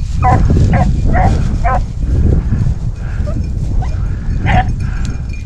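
Rabbit hounds barking in short, high yelps while running a rabbit's trail: four quick yelps in the first two seconds and another about four and a half seconds in, over a steady low rumble.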